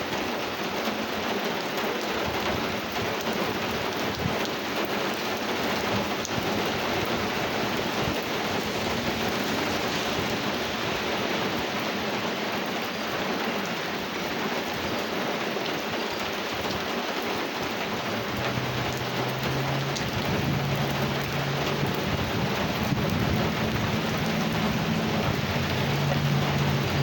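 Steady heavy rain falling during a thunderstorm, an even hiss of downpour. In the last third a low hum of steady tones that step up and down in pitch joins in.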